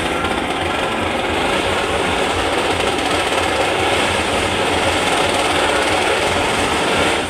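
A motor running steadily with a low hum, a dense, unbroken mechanical noise.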